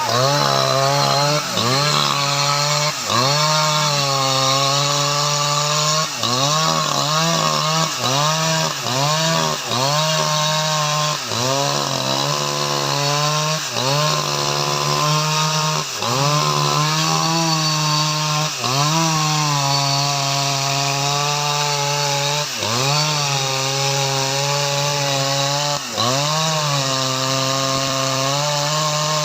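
Jonsered 2095 Turbo's 93.6 cc two-stroke chainsaw engine running at high speed while cutting teak wood. Its pitch dips and recovers about once a second as the chain is loaded and eased in the cut.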